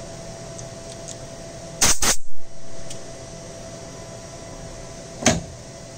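Steady machine hum with a faint steady tone from a small collet lathe, broken by sharp metal clacks as the lathe is worked by hand: two close together about two seconds in and another just after five seconds.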